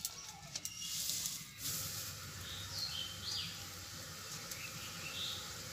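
Banana-leaf parcels rustling with a few light clicks as they are set into a steel colander, for about the first second and a half. Then small birds chirping in short rising and falling notes.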